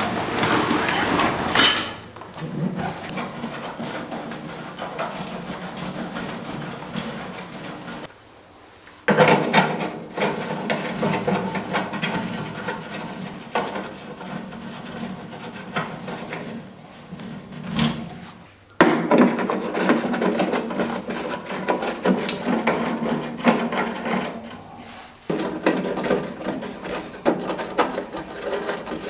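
Rubbing, rasping wooden sounds in three long stretches, with short pauses about eight and about eighteen seconds in.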